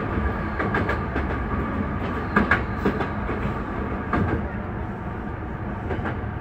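Hankyu Kyoto Line electric train running on the track, heard from inside the driver's cab. A steady running rumble is broken several times by the clickety-clack of wheels going over rail joints and points.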